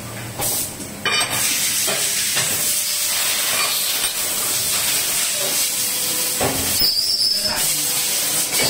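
Steady loud hissing from a hydraulic moulding press, starting abruptly about a second in, with a few short knocks of the metal mould tray being handled.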